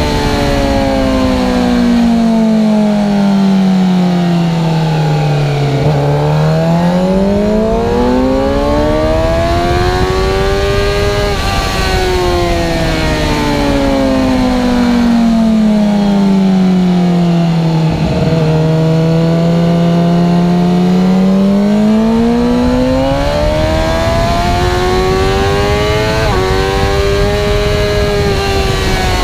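Suzuki GSX-R750 inline-four engine under way at speed. Its pitch falls slowly for several seconds, climbs back up, breaks briefly at a gear change, then falls and climbs again in a second cycle.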